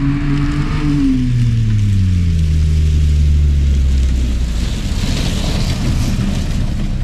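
Pickup truck engines running hard during a drag race: the engine note holds steady, then drops in pitch over about two seconds, giving way to a steady rushing noise.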